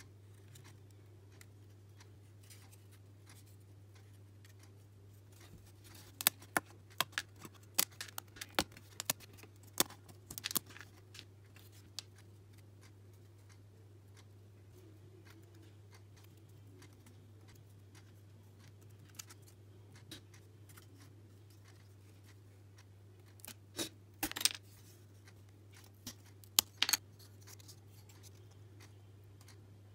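Small laser-cut plywood puzzle pieces clicking and snapping as they are handled and pressed together by hand: a flurry of sharp clicks a few seconds in, quiet handling, then another cluster near the end, over a steady low hum.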